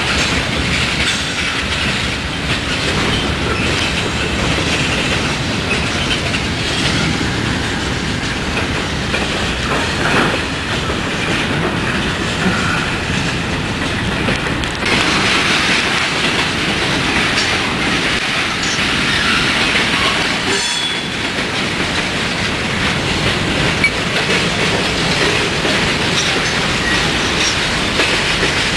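Freight train rolling past at close range: tank cars and covered hoppers on steel wheels, clacking over rail joints, with a brief high wheel squeal about twenty seconds in.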